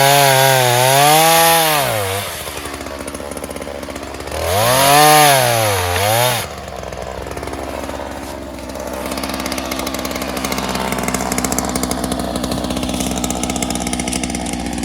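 Ryobi two-stroke chainsaw revved high twice, its pitch swelling and sagging, then dropping back abruptly to a lower steady idle about six and a half seconds in.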